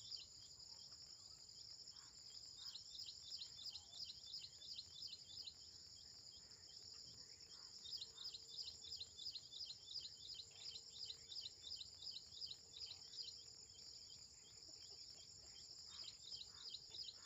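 Faint, steady, high-pitched insect trilling, with bouts of rapid, repeated high chirps, several a second, that come and go.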